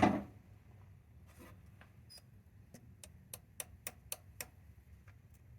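A run of sharp clicks, about four a second for a second and a half, from a metal pick chipping at an old oil pump gasket that has gone hard and brittle.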